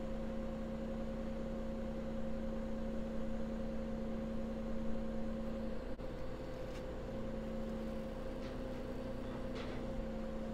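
Hydraulic haul-out trailer and its tow vehicle running steadily under a catamaran as it is lifted, giving a steady engine and pump hum, with a few faint clicks in the second half.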